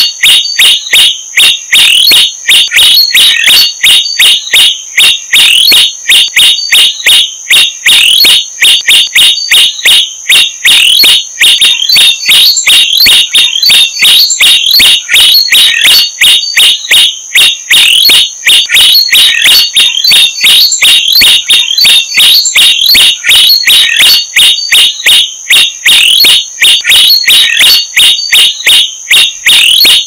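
Common tailorbirds calling at the nest: a fast, unbroken stream of loud, high-pitched chirps, about four a second, over a steady high tone.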